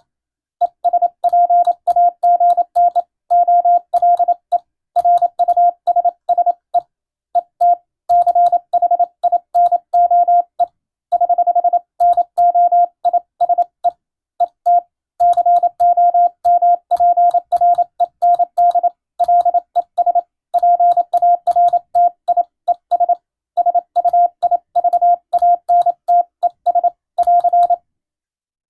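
Morse code (CW) tone at a single pitch, keyed on and off in dots and dashes, sending an English-language radiotelegram as receiving practice for the radio operator exam. The sending stops near the end.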